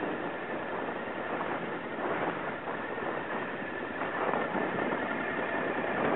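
Adventure motorcycle engine running as the bike rolls slowly over a dirt track, with steady wind noise on the microphone.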